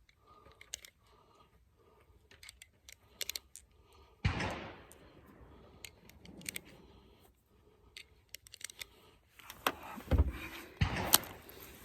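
Small clicks and rattles of hard objects being handled. About four seconds in comes a sudden thud with a short fading rush, and near the end a cluster of louder knocks.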